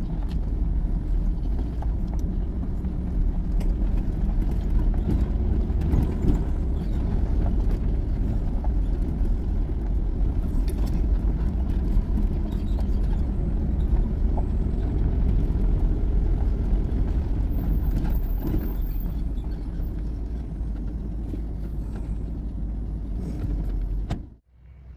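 Pickup truck driving along the road: a steady low rumble of engine and road noise that cuts off suddenly near the end.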